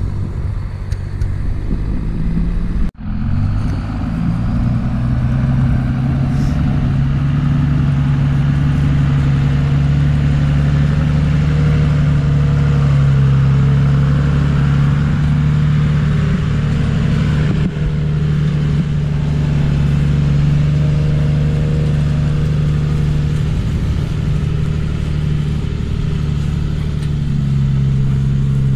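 Second-generation Dodge Ram pickup's engine running with a steady low drone as the truck drives while carrying a round hay bale. The sound cuts out for an instant about three seconds in.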